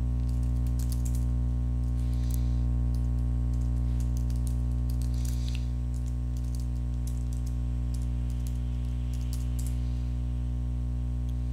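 Computer keyboard typing: scattered groups of key clicks over a steady low electrical hum.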